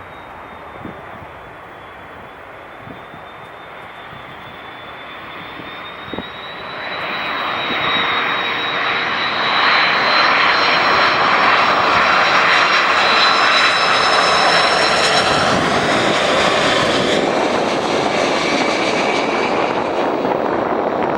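Jet engines of an Airbus A330-300 airliner on its landing approach, growing louder as it nears, with a high whine that climbs in pitch and then drops away about sixteen seconds in as the aircraft passes, leaving a loud steady rush of engine noise.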